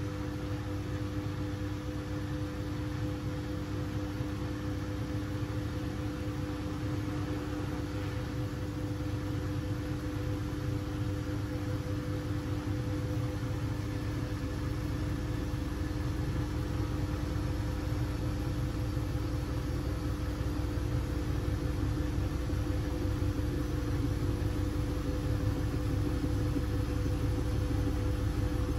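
Siemens Siwamat 6143 washing machine running during a boil wash: a steady motor hum over a low drum rumble that grows louder in the last third.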